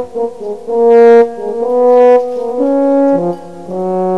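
Music: a short melody of held notes stepping from one pitch to the next, with the loudest notes about a second and two seconds in.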